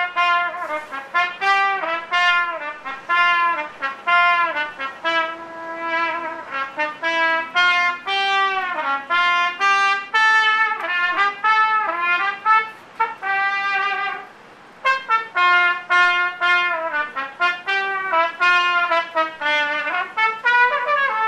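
A solo trumpet plays a slow melody, note after note, with some notes sliding into the next. It breaks off for about a second about two-thirds of the way through, then goes on.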